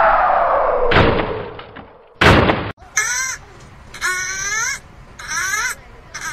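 A falling whistle-like glide ends in a thump about a second in, and a loud bang follows a second later. Then a kitten mews in short cries, four times, each rising in pitch.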